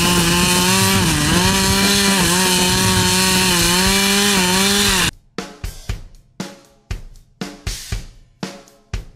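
Chainsaw running at full throttle as it cuts into a tree trunk, its pitch dipping briefly under load a few times, then cutting off abruptly about five seconds in. Drum beats follow, about three a second.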